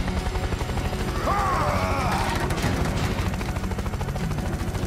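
Helicopter rotor chopping fast and steady as a rescue helicopter flies in, a cartoon sound effect.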